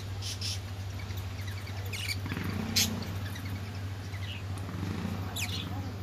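Budgerigars giving short, scattered chirps, with a sharper one about three seconds in, over a steady low hum.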